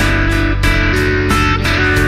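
Background music led by guitar, with a steady strummed rhythm.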